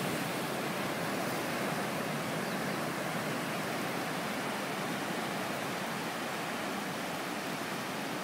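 Ocean surf breaking and washing onto a beach: a steady, even rush of waves.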